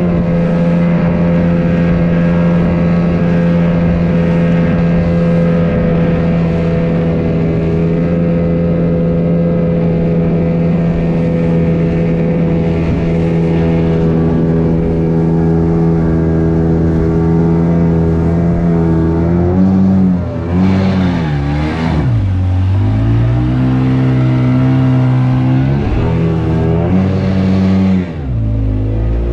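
Outboard motor of a small speedboat running at a steady high throttle. About two-thirds of the way through, the throttle is eased back and opened up again a few times, so the engine note falls and rises, then falls again near the end.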